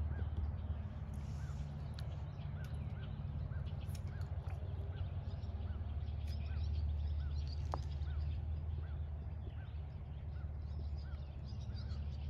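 Steady low hum with faint short chirps repeating evenly, about two or three a second.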